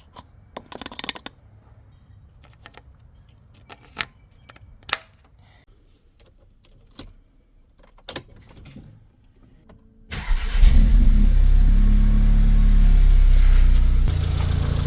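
A few light clicks and knocks, then about ten seconds in the Audi S3's 2.0-litre turbocharged four-cylinder starts and runs at a raised idle that settles slightly lower near the end. This is the engine's first start on fresh oil after an oil and filter change.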